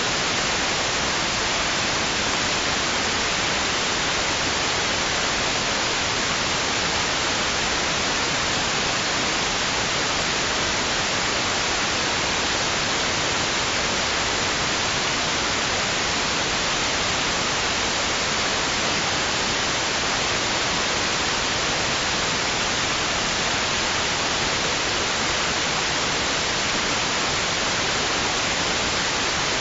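Steady white noise: an even, unchanging hiss, stronger in the upper range, with no swells or breaks.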